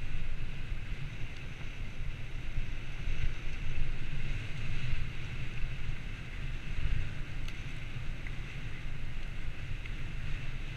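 Wind buffeting the camera microphone of a bicycle coasting downhill, with a low, uneven rumble from its tyres rolling over block paving under a steady hiss.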